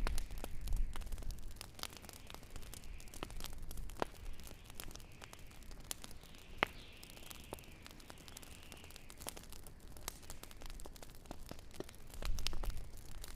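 Wood fire crackling: irregular sharp pops and snaps over a soft hiss, the loudest pop about two-thirds of the way through. A low rumble sits under it at the start and comes back near the end.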